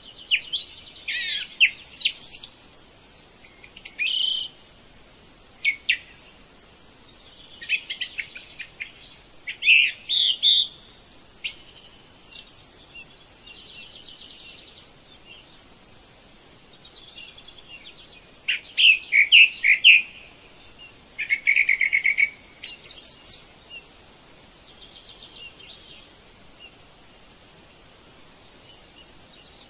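Songbirds singing: a string of short, varied chirps, whistles and trills with brief pauses between phrases, and quieter rapid trills near the end.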